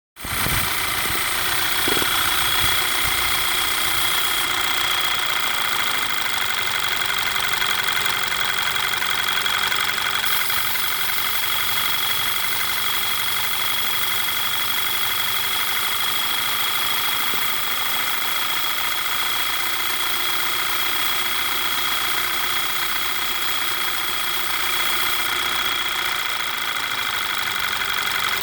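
Audi A4 B8 engine idling with a steady high-pitched whistle and hiss over it, the sound the owner suspects comes from a vacuum leak.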